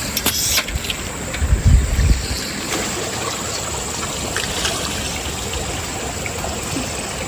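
River water flowing steadily, with a brief knock near the start and a low thump about two seconds in.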